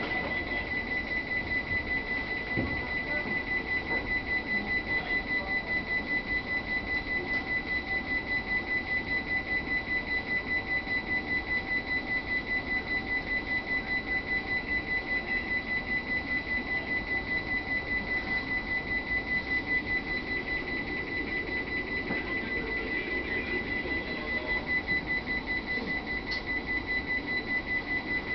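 Electronic alarm on an E231-series train sounding a rapid, even beeping on one high tone while the train stands after an emergency brake application.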